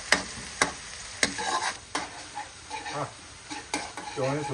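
Metal slotted spatula scraping and clacking around a wok while chopped chilies and aromatics fry and sizzle in oil. There are about five sharp knocks of the spatula on the pan, roughly half a second to a second apart.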